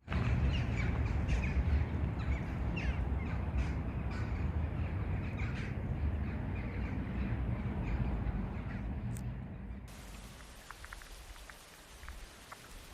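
Small birds chirping and calling over a heavy low rumble. About ten seconds in, the sound cuts abruptly to a quieter light patter of scattered ticks.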